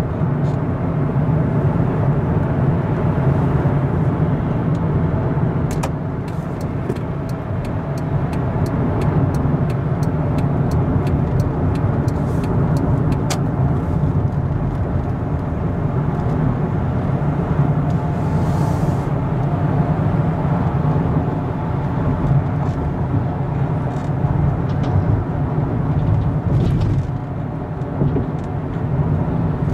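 Steady low rumble of a car driving at road speed, heard from inside the cabin: engine and tyre road noise. Now and then there are faint light ticks in the first half.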